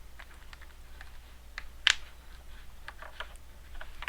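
Light, scattered clicks and taps of hands fitting a laptop's LCD display cable connector onto the back of a replacement screen, with one sharper click a little under two seconds in.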